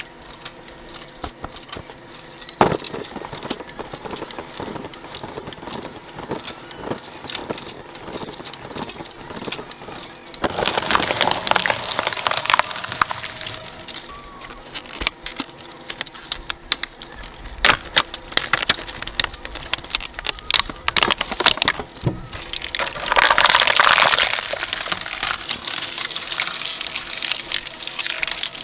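Shredder chewing through toys: a steady run of sharp cracks and crackles as plastic breaks, with two louder spells of grinding, about ten seconds in and again near the end.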